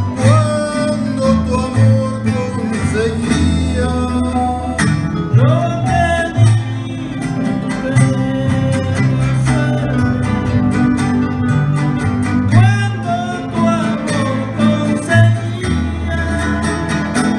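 Son jarocho played live: jaranas strummed in a steady rhythm over the plucked bass notes of an arpa jarocha, with a man singing phrases that slide up in pitch at the start of each line.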